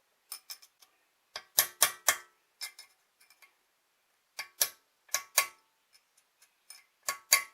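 Hammer blows on metal in quick clusters of two or three, each strike ringing briefly, tapping a newly pressed wheel bearing and its snap ring until they are seated.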